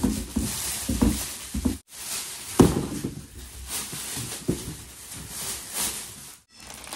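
Clear plastic wrapping crinkling and rustling as it is handled and pulled off a white plastic part, with a few light knocks. The sound drops out briefly twice, about two seconds in and near the end.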